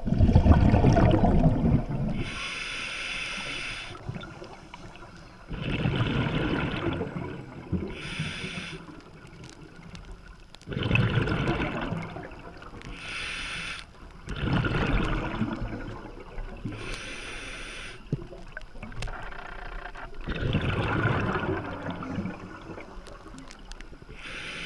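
Scuba diver breathing on an open-circuit regulator underwater: a hiss of inhalation through the demand valve alternates with a rumble of exhaled bubbles, about five breaths in a slow, even rhythm.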